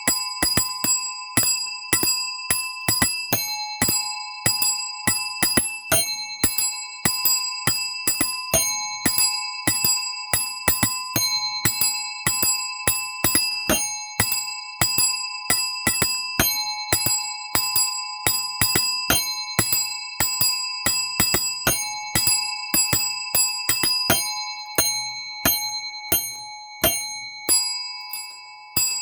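A small metal bell rung rapidly and repeatedly, about three strikes a second, its tone ringing on between strikes. The strikes thin out in the last few seconds.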